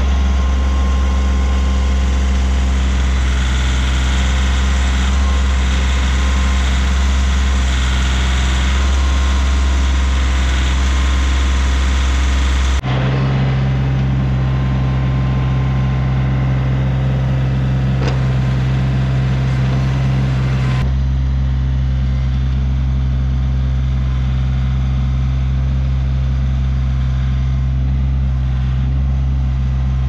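Compact tractor engine running steadily while its backhoe digs and moves soil. The engine note changes abruptly about 13 seconds in and again about 21 seconds in.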